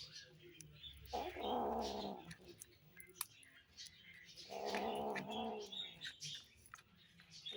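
A cat gives two long, drawn-out calls, each about a second long: one about a second in and one near the middle. Under them run faint high, thin squeaks and a few sharp clicks, the noises of kittens eating.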